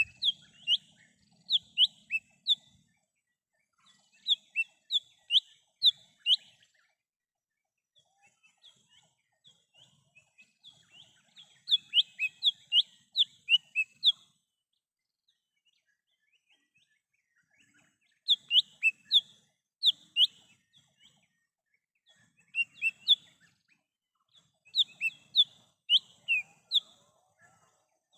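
Leafbird (cucak hijau mini) calling: bursts of sharp, quick chirps, four to eight fast down-slurred notes each, repeated about six times with pauses of a few seconds between.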